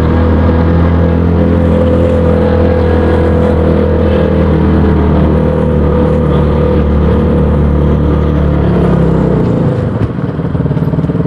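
KTM Duke 200's single-cylinder engine and exhaust running at steady revs. About nine and a half seconds in, the note drops and turns rough and choppy.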